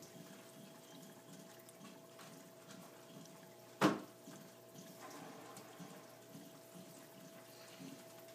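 Reef aquarium's powerhead and circulation running: steady trickling water with a low pump hum. A single sharp knock comes about four seconds in, and from about five seconds on there is a little more bubbling as the powerhead blows a stream of air bubbles.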